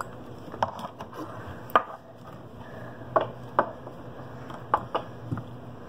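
Play-Doh tools and plastic tubs handled on a tabletop: about eight light, irregular taps and clicks.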